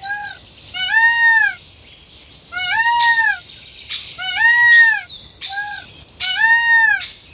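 Indian peafowl calling repeatedly: four long calls that each rise and fall in pitch, most of them preceded by a shorter call.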